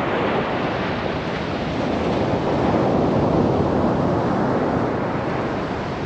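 Sea waves breaking and washing up the beach close to a low-held microphone: a steady rush that swells about three seconds in.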